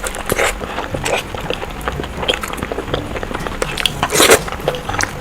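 Close-miked eating sounds of someone eating sunny side up fried eggs: quick wet chewing and lip smacks, with a louder, longer smack about four seconds in.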